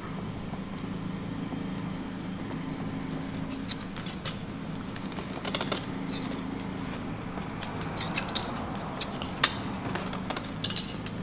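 Thin aluminum soda-can sheet being folded over and pressed flat with an empty pen on a wooden board: scattered small crinkling clicks and taps, in two spells about four and eight seconds in, with one sharper click near nine seconds, over a steady low hum.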